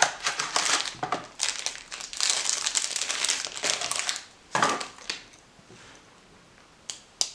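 Wrapping crinkling and rustling as it is handled, in irregular bursts for about four seconds, then one sharp click and a quieter stretch with a couple of faint clicks near the end.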